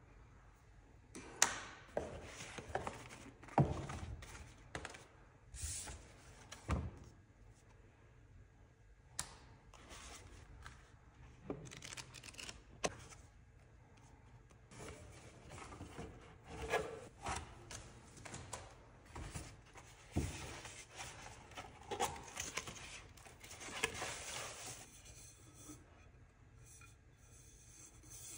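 Hands unpacking a gift box: shredded paper packing rustling, with light knocks and clicks as small items are picked out and set down on a desk. A longer stretch of rustling comes in the second half.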